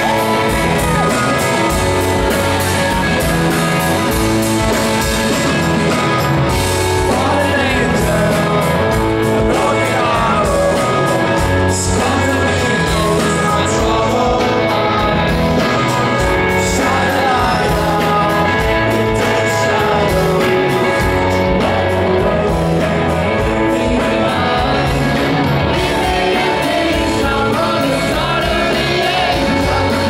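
Live rock band playing: electric guitars and drums with a male lead vocal, loud and steady throughout, picked up from the crowd in a large hall.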